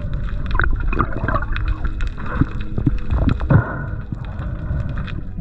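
Seawater gurgling and bubbling around a freediver, with irregular sharp clicks and knocks over a low rumble.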